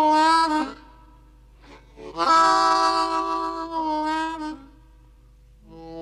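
Hohner Marine Band Low D harmonica played solo, blues style. A long held draw note dips in pitch and breaks off about half a second in. After a pause comes a second long held note, about two seconds, that wavers toward its end. Short choppy notes start just before the end.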